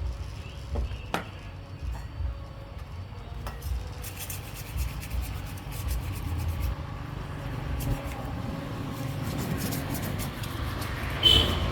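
Hand work on water pump parts: irregular rubbing and scraping, with a few sharp clicks and knocks, growing louder near the end.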